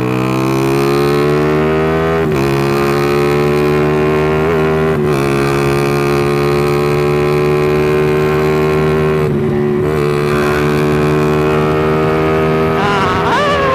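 Motorcycle engine running steadily as it is ridden, its pitch creeping slowly up with a few brief dips. Near the end a higher whine rises sharply.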